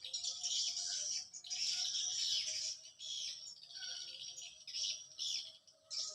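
Birds chirping and twittering in a dense run of rapid high notes, with short gaps about one and a half and three seconds in.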